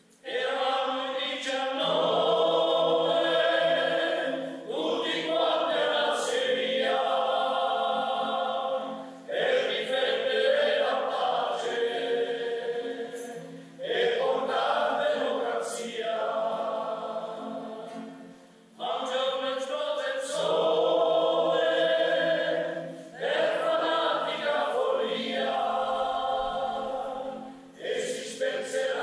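A choir singing in sustained phrases. A new phrase begins about every four to five seconds, with a brief break between phrases.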